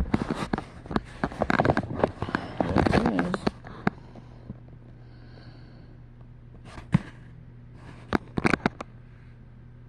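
Crackling, knocking handling noise close to the microphone: a dense run of clicks and crackles for about four seconds, then a steady low hum with a few isolated clicks near the end.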